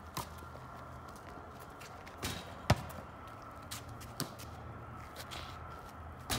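Several sharp thuds of a basketball being passed, caught and shot on an asphalt driveway, the loudest a little before halfway, over a steady low hum.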